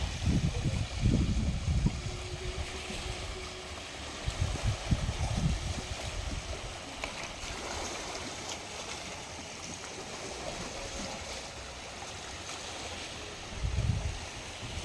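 Waves washing on a beach, a steady rush of water, with low gusts of wind buffeting the microphone now and then.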